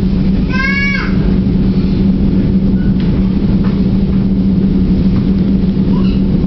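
Steady low hum and rumble of a diesel commuter train heard from inside the coach as it runs along, with one short squeal about half a second in.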